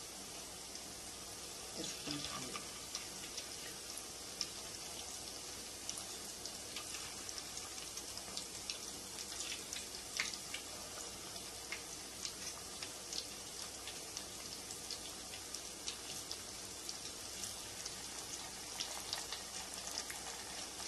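Breaded potato cheese balls deep-frying in hot oil: a steady high sizzle with frequent small crackles and pops.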